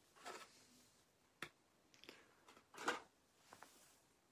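Faint handling sounds while tying a fly: a sharp click about a second and a half in and a brief rustle about three seconds in, with a few tiny ticks. Otherwise near silence.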